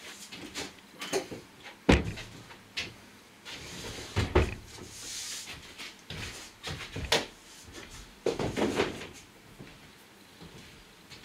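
Knocks, thumps and scrapes of a loose plywood lining panel being handled against the bare sheet-metal walls and floor of an empty van's load area. The loudest knock comes about two seconds in, a scrape follows about five seconds in, and there is a cluster of knocks near the end.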